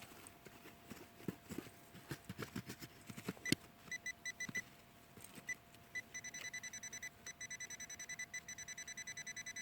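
Handheld metal-detecting pinpointer beeping in quick, evenly spaced pulses, about six a second, signalling metal close to its tip: a few short bursts, then a continuous run through the last few seconds. Soft knocks in the first few seconds and a faint steady hum lie underneath.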